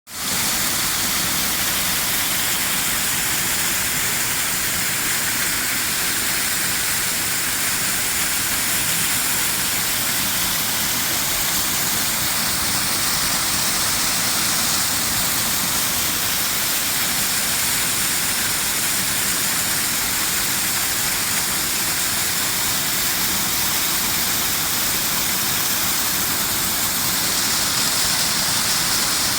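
Waterfall pouring steadily: a constant, even hiss of falling water with no breaks.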